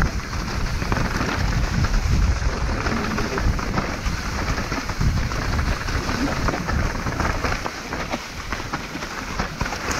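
Mountain bike riding down a rough trail: the tyres crunch over loose gravel and stones, with many small knocks and clatters from the bike, over a heavy low rumble of wind on the microphone that eases near the end.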